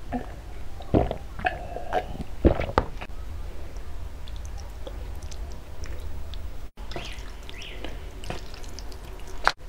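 Close-up mouth sounds of drinking and eating: gulps and clicks in the first three seconds as soda is swallowed from a glass, then softer wet noodle and chopstick sounds, all over a low steady hum.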